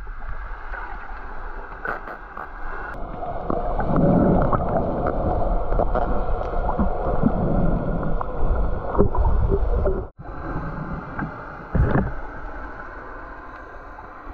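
Muffled underwater sound through a camera housing: water rushing and bubbling around the diver, with a few faint knocks. It swells twice and cuts out briefly past the middle.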